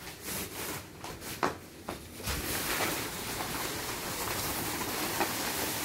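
A fabric car cover rustling and sliding as it is pulled off a car. There are a few light knocks in the first two seconds, then a steady rustling hiss from a little over two seconds in.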